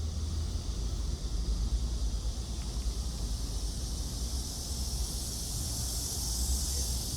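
Outdoor ambience: wind rumbling on the microphone under a steady high hiss that swells about five seconds in.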